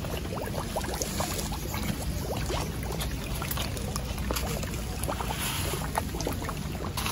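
Rain falling on a pond, with a crowd of koi splashing and slurping at the surface, making many small irregular plops and drips over a steady wash.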